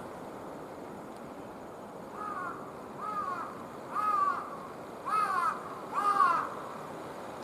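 A crow cawing five times, about a second apart, the calls growing louder, over steady background noise.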